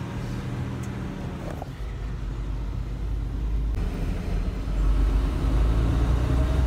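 Steady low engine and road rumble heard from inside a moving vehicle's cab, growing louder about two-thirds of the way in.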